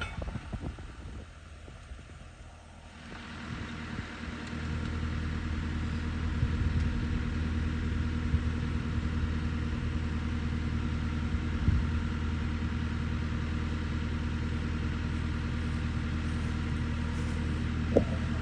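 Skid steer loader's engine running, climbing to a higher speed about three to four seconds in and then holding steady. Two short sharp knocks stand out, one midway and one near the end.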